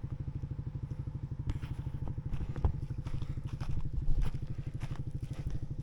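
Quad bike (ATV) engine running at a steady, evenly pulsing note while it drags a stone-weighted wooden pallet to level the ground, with a couple of short knocks midway.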